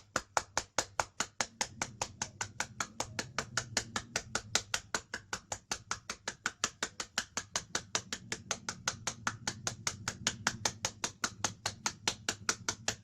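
Rapid, steady hand tapping, about six sharp taps a second, from a healer's fingers striking nerve points during totok acupressure treatment for cough and breathlessness.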